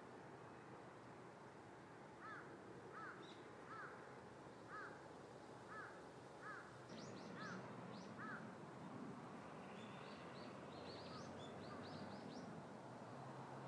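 A crow cawing about eight times in an even series, roughly one caw every two-thirds of a second, then small birds chirping in quick high notes, faint over a steady background hiss.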